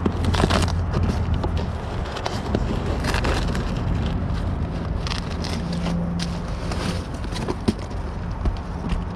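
Hand work on an air-conditioner condenser fan motor: scattered clicks, knocks and scrapes over a steady low hum.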